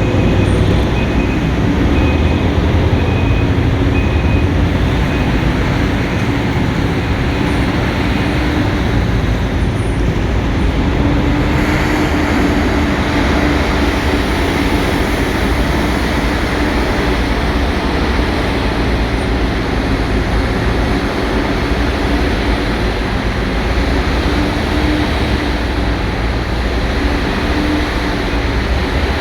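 Large mining hydraulic excavator running steadily under load, a loud continuous engine and hydraulic drone. For the first few seconds a high-pitched warning alarm beeps at an even pace, a little more than once a second.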